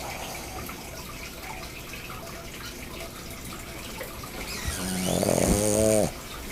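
Boston terrier snoring in its sleep: low, soft breathing, then near the end one loud snore about a second long, its pitch dropping as it ends.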